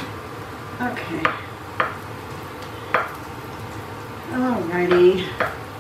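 A knife chopping garlic cloves on a wooden cutting board: about five sharp chops at uneven intervals in the first three seconds. Near the end a woman's voice is heard briefly, without clear words.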